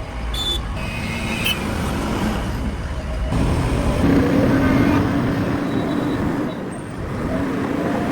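JCB 3DX backhoe loader's diesel engine running, working harder for a second or two about halfway through and again near the end. A few short metallic clinks early on.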